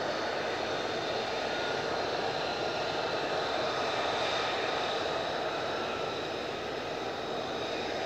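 F-35A Lightning II's Pratt & Whitney F135 turbofan running at taxi power: a steady jet noise with a high whine that holds its pitch.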